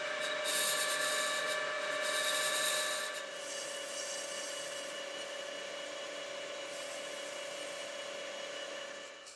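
CNC milling spindle running with a steady whine, cutting into the workpiece with a harsher hiss twice in the first three seconds, then running on more evenly until it stops near the end.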